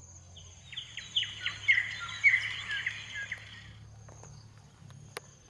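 Birds chirping in a quick run of sharp, falling chirps for about three and a half seconds, over a steady high insect drone. A single sharp click near the end.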